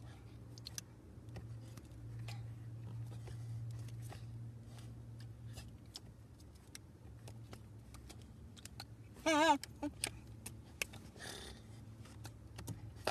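Hands slapping, clapping and brushing against each other and against clothing during fast sign language, heard as scattered short taps and rustles over a steady low hum. A short, loud warbling tone sounds about nine seconds in.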